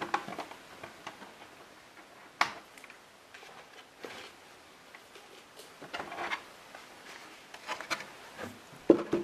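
Scattered small clicks and light clatter as the metal body clips are pulled from an RC monster truck's body posts and the plastic body is lifted off, with the loudest clatter near the end.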